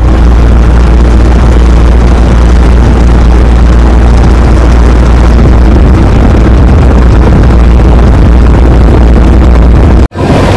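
Bus engine and road noise inside the driver's cabin while under way: a loud, steady low drone with rumble and rattle above it.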